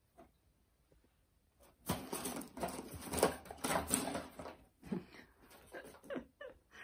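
A Pomeranian puppy nosing and digging through shredded filling and balls in a cardboard box: irregular rustling and scratching that starts about two seconds in.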